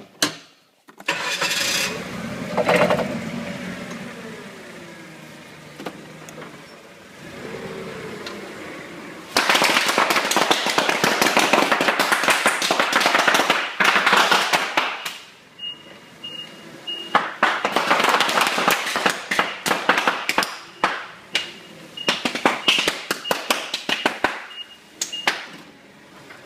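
Forklift engine starting and running, then large-bubble wrap popping in rapid crackling runs as the forklift rolls over it. A high beep sounds on and off during the later popping.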